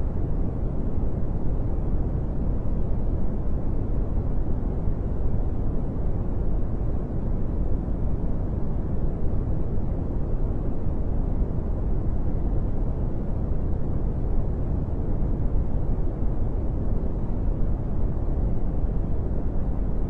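Steady brown noise: an even, deep hiss with most of its energy in the low end, fading off toward the highs, unchanging throughout.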